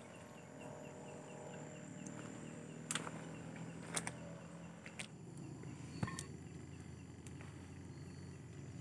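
Night-time outdoor ambience: a low steady hum with faint insect chirping, broken by a few sharp clicks and knocks, about one a second through the middle.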